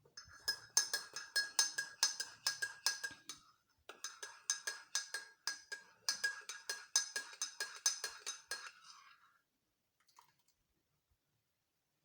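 A metal spoon stirring in a cup, clinking against the side about four times a second with a ringing note. It pauses briefly after about three and a half seconds, then goes on and stops near nine seconds in.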